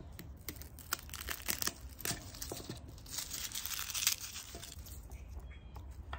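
A head of garlic being broken apart into cloves on a wooden cutting board. The papery skins crackle and tear, with scattered sharp clicks of the knife and cloves against the board.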